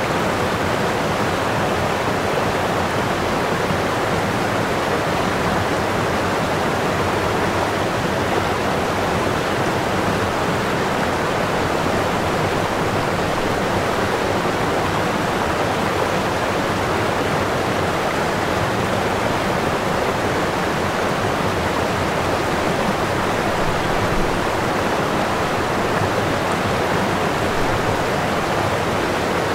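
Water rushing steadily over a small waterfall.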